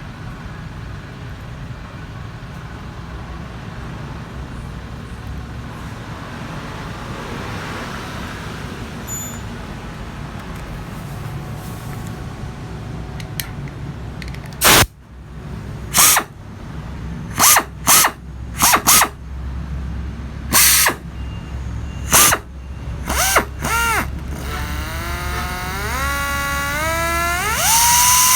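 Pneumatic (air-powered) cutting tool triggered in about ten short, sharp bursts of whining, starting about halfway through, then run longer near the end with its pitch climbing in steps as it spins up. A steady low hum sits underneath throughout.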